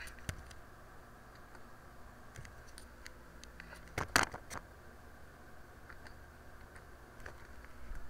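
Scattered computer mouse clicks and keyboard key presses over a faint steady hum, with a louder cluster of clicks about four seconds in.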